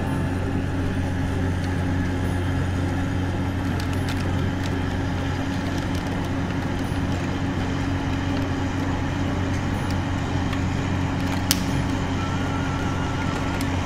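Steady low engine hum, like a truck engine idling, holding the same pitch and level throughout.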